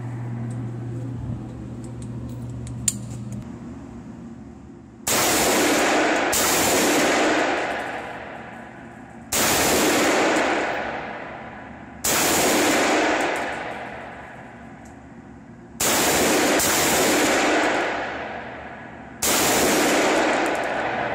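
Seven single gunshots from a compact 9 mm submachine gun (MP9), fired one at a time at uneven intervals: two close together, then spaced a few seconds apart. Each crack is followed by a long echoing decay in the enclosed indoor range. The first shot comes about five seconds in.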